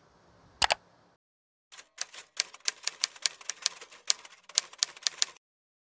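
Typewriter key-clacking sound effect: one sharp strike, a short pause, then a quick irregular run of key strikes lasting several seconds.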